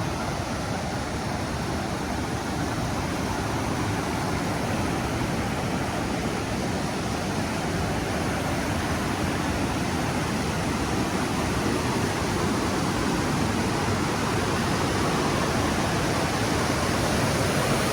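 Rushing water of a mountain creek cascade: a steady, even rush that grows slightly louder toward the end.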